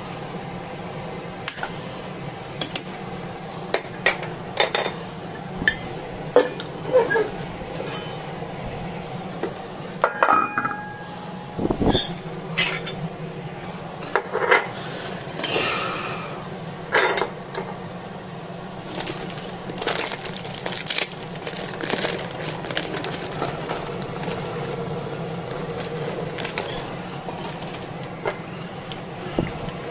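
Kitchen utensils knocking and clinking: a metal ladle stirring in a stainless steel cooking pot and a small ceramic dish and ladle handled on a steel counter, in irregular sharp clinks over a steady low hum.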